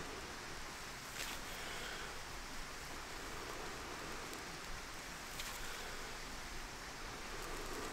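Breath blown steadily into a smouldering bundle of dry bracken tinder to coax an ember into flame, with the dry stems rustling in the hands and a couple of faint crackles.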